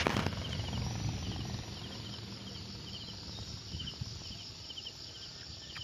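An insect chirping steadily in the vegetation: short, high, pulsed chirps repeating about twice a second, over a low steady background rumble.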